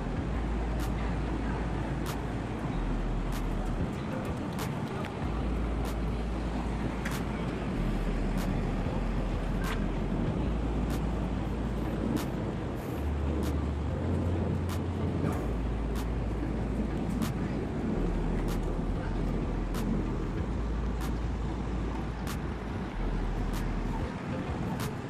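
Outdoor city ambience: a steady low rumble of traffic-like noise with soft, regular footsteps on a paved walkway, about one tick a second.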